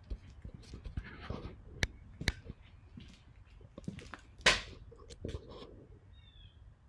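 Scattered sharp clicks and taps with soft rustling between them, a few louder clicks standing out.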